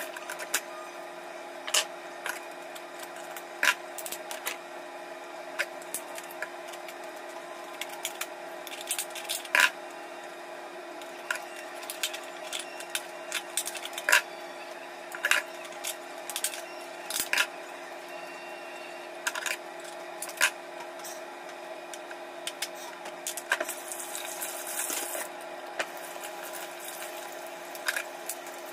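Irregular clicks and cracks of crab shells being pulled apart and cleaned by hand, over a steady low hum. A short hiss comes in late on.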